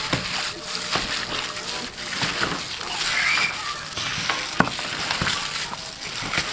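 Raw chicken drumsticks being tossed in marinade by a plastic-gloved hand in a metal tray: wet squelching and slapping, broken by many short sharp clicks.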